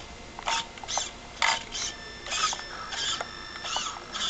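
Traxxas Stampede RC truck's Titan 12T 550 electric motor and drivetrain whirring in short throttle bursts, about two a second, some with a brief rising and falling whine. It runs weakly on batteries that are going dead.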